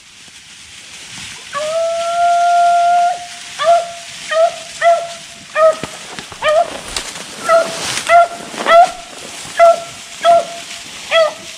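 Beagle hound baying on a rabbit's trail: one long drawn-out bay, then a string of about a dozen short barks at the same pitch, one or two a second.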